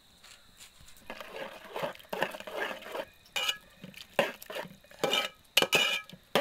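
A metal ladle stirs a pot of sauce, scraping and clinking against the metal pot in irregular strokes as salt is stirred in. It starts about a second in, and the knocks against the pot are loudest near the end.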